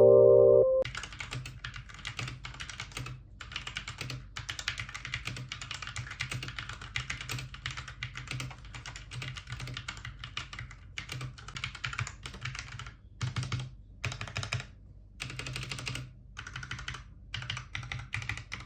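Typing on a Rexus Ayaka budget mechanical keyboard: fast runs of key clicks with a few short pauses, starting about a second in.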